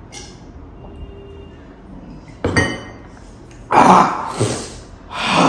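A man gasping and exhaling hard in three loud, breathy outbursts, about two and a half, four and five seconds in, the loudest at about four seconds. It is his reaction to a mouth burning from extremely spicy noodles.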